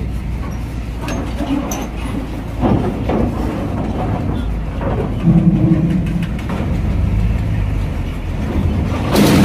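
Heavy trucks' diesel engines rumbling as they drive off a ferry over the steel loading ramp, with a few metallic knocks from the ramp. A loud rushing scrape rises near the end, like a truck's underside dragging on the ramp.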